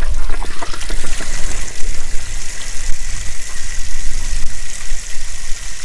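Water gushing steadily out of the drain opening of a Suburban RV water heater as the tank empties, the drain-plug anode just removed. The relief valve is open to let air in, so the water runs out faster.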